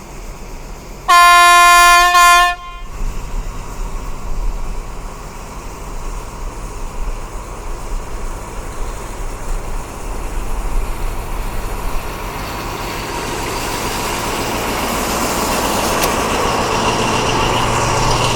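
Train horn sounding one long blast and then a short one about a second in, followed by the steady rumble of the train running on the rails, growing louder near the end.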